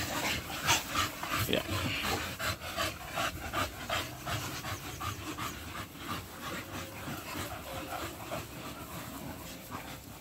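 American bully dogs panting hard, a quick, even run of breaths that is louder in the first few seconds and fades later.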